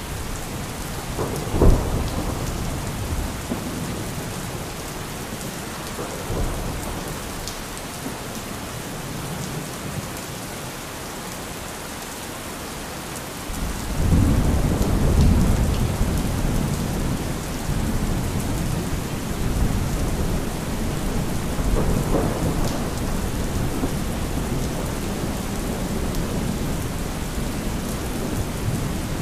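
Thunderstorm: steady rain with thunder. A sharp thunderclap comes about two seconds in, and a long low rumble of thunder sets in about halfway through and slowly fades.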